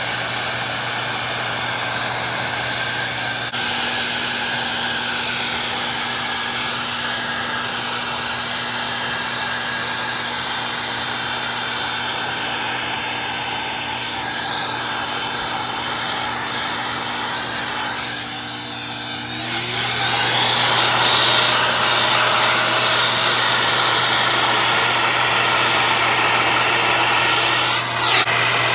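Vacuum cleaner running steadily while it cleans dust off a curtain rail. About two-thirds of the way through its pitch rises and it gets louder, then runs on at the higher level.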